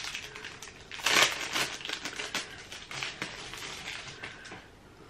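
Plastic packaging crinkling and crackling as it is handled and opened to take out eye pencils, loudest about a second in and dying down near the end.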